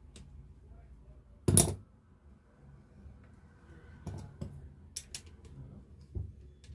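Metal tools and self-starter parts knocking and clinking during reassembly: one loud knock about a second and a half in, then a few lighter clicks and taps.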